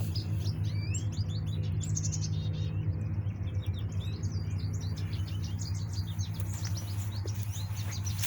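Birds chirping, a dense run of quick short high calls, over a steady low rumble.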